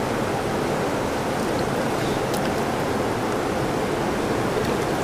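Mountain stream rushing steadily over rocks.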